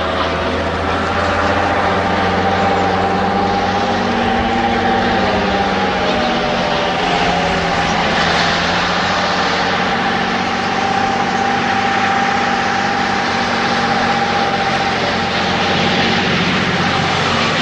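Several Steyr heavy dump trucks driving in a line, their diesel engines running with a steady drone. The engine pitch wavers for a few seconds near the start and then holds even.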